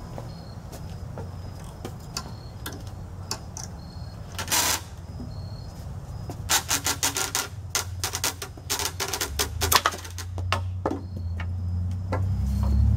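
Wooden knocks, clicks and a brief scrape from a homemade bungee-powered wooden catapult as its arm and tray are handled and pulled back, with a quick run of clicks in the middle. A low rumble grows near the end.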